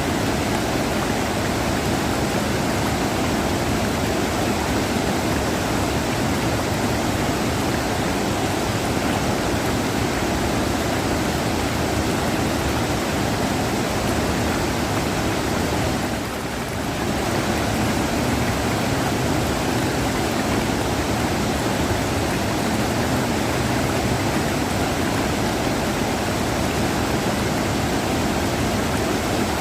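River water rushing: a dense, steady rush that dips briefly a little over halfway through.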